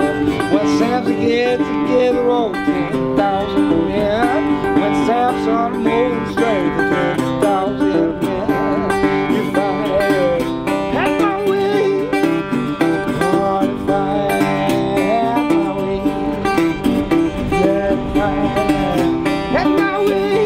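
Resonator guitar playing a blues passage, with many notes sliding and bending in pitch.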